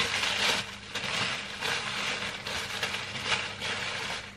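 Tissue paper rustling and crinkling as it is handled and pulled out of a cardboard box, in uneven surges that die down near the end.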